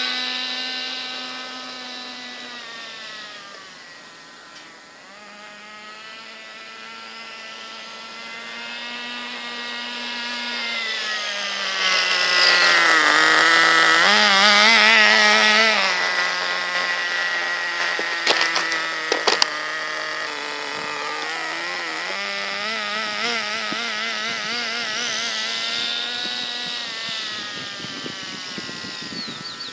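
Redcat Shockwave nitro RC buggy's small glow-fuel engine running, its pitch rising and falling with the throttle. It fades as the buggy drives off and is loudest when it comes back close, about halfway through. A few sharp clicks follow a few seconds later.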